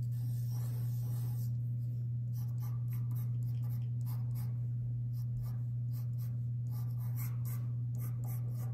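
Graphite pencil scratching on paper in short sketching strokes, coming thicker and faster from about two seconds in, over a steady low hum.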